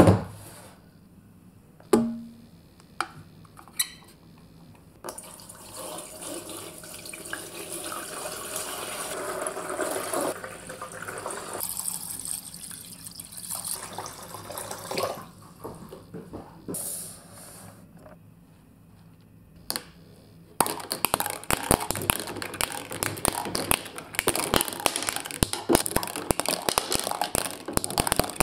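A few sharp knocks as the plastic marble-run tower is set down in a glass tank, then water pouring in and filling the tank for about ten seconds. From about two-thirds of the way in, a dense rapid clicking and rattling of balls running round the plastic spiral track under water.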